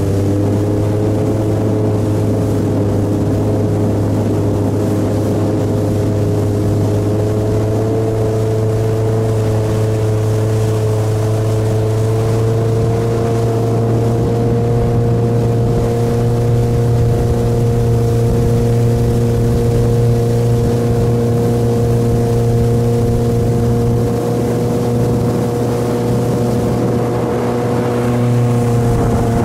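Thai longtail speedboat's engine running steadily under way, its pitch creeping up a little over the first half and dipping briefly near the end.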